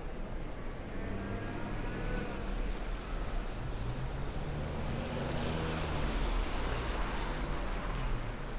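City street traffic: a motor vehicle passing, its engine and tyre noise swelling to a peak about six seconds in.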